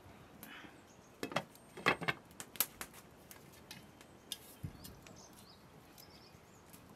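A pot lid being set on a cooking pot: a few sharp clinks and knocks about one to three seconds in, then lighter ticks, with faint bird chirps.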